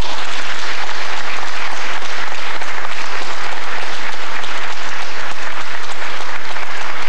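Audience applauding, loud dense clapping held at a steady level.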